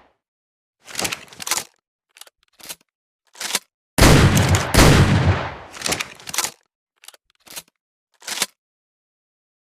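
Double-barrel shotgun sound effect: a few short clicks of the gun being handled, then two loud blasts about 0.7 s apart, about four seconds in, with a ringing tail, followed by more handling clicks.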